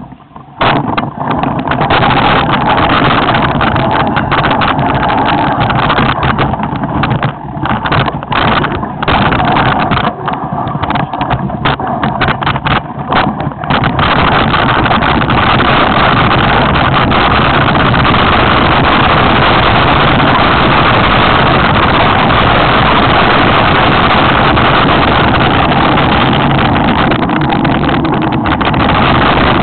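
Mountain bike riding downhill at speed: a loud rush of wind on the microphone mixed with tyre and trail noise. It is choppy with brief dips for the first half, then runs as a steady, unbroken roar from about halfway.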